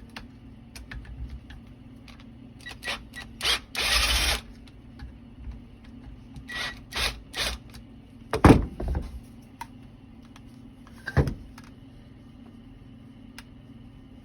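Tools and metal pump parts being handled during reassembly of a garden pump: scattered clicks and knocks, a short burst of noise about four seconds in, several quick rasps a little later, and two louder knocks in the second half, over a faint steady hum.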